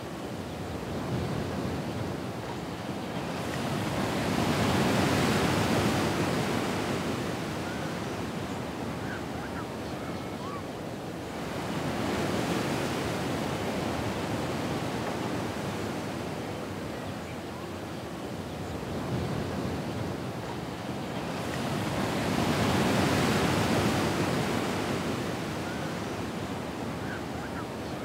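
Ocean waves washing in and drawing back: three slow swells, each rising to a peak and fading away over several seconds.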